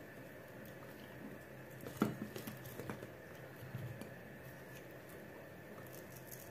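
Raw hake pieces being handled and laid out, with soft wet squishing and patting. There is a sharp knock about two seconds in, then a few lighter taps over the next two seconds.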